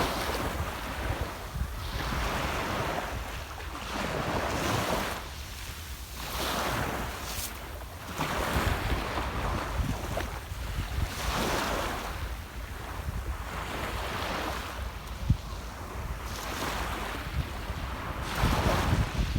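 Small sea waves breaking and washing onto the shore, one after another every second or two, with wind rumbling on the microphone.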